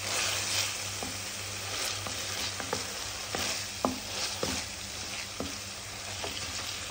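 Ginger-garlic-onion paste frying in oil in a kadhai on low flame, sizzling steadily while a spatula stirs it. Irregular light scrapes and taps of the spatula on the pan run through the sizzle.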